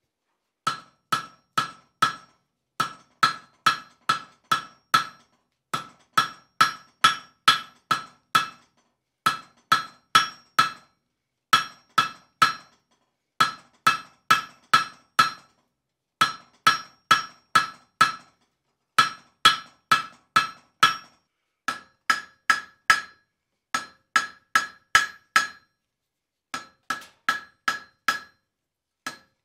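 Blacksmith's hammer striking a glowing-hot steel bar on an anvil while thinning the shank of a hook. The blows come in quick runs of about five, with short pauses between runs, and each blow rings with a clear metallic tone.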